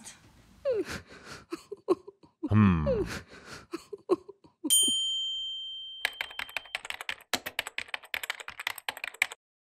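Animated cartoon sound effects: a few short pitched blips and a sliding tone, then a bright bell ding about five seconds in that rings away, followed by about three seconds of fast computer-keyboard typing.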